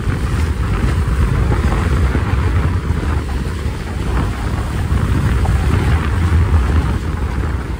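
Steady wind buffeting the microphone of a sailing yacht under way at speed, a loud, even rumble with no distinct events.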